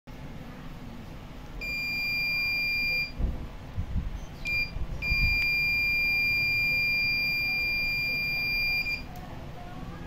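Electronic buzzer of a homemade laser tripwire alarm sounding a steady high-pitched tone whenever a hand breaks the laser beam: on for about a second and a half, then a short chirp, then on again for about four seconds before it stops near the end. A few soft low thumps fall in the gap between the tones.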